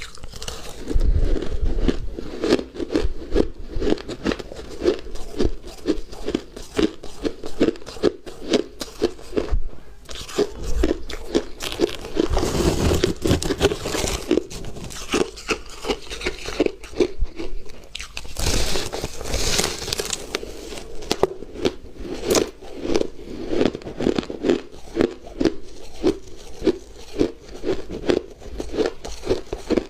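A person chewing crunchy shaved and refrozen ice close to the microphone: a steady run of crunches, about three a second, with louder crunching bites twice, about twelve and eighteen seconds in.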